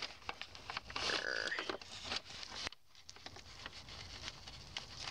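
Small handling noises as gloved hands twist and pry at the plastic end bushing on the tip of a manual-transmission shift lever, trying to work it off the metal: scattered clicks and rubbing, busiest about a second in.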